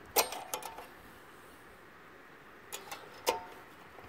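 Light metallic clicks and clinks from hands handling a small part on a lawnmower engine: a quick cluster in the first second and two more about three seconds in, each with a short ring.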